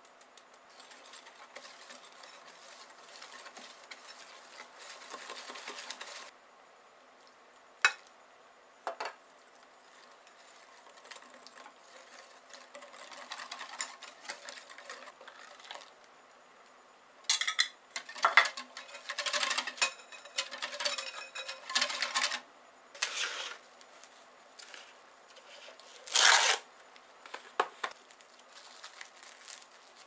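Cornstarch being sifted through a stainless mesh sieve, with a hand tapping the sieve over a glass bowl: a steady rustling hiss for about six seconds. Then a wire whisk stirs the mixture in the glass bowl, its wires clinking and clattering against the glass in loud bursts in the second half.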